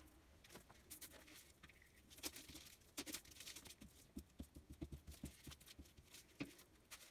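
Faint rustling of paper and card being handled and pressed flat onto a sheet on a table, with irregular light taps and clicks.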